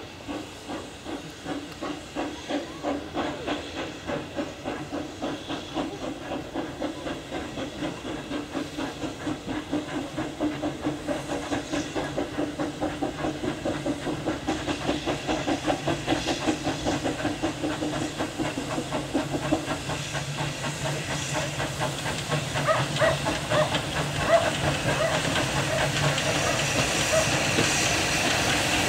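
GWR steam railmotor No. 93 pulling away: a steady steam hiss with evenly spaced exhaust beats that quicken as it gathers speed.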